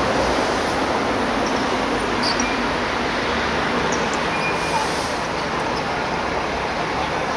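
Steady outdoor background noise, an even rushing hiss and rumble with no clear single source.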